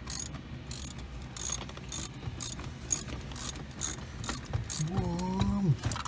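Ratchet wrench clicking in short bursts, about two a second, as it backs out the bolts holding an automatic shifter assembly.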